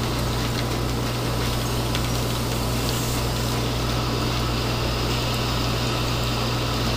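Dry ice fizzing in water: a steady hissing rush over a steady low hum.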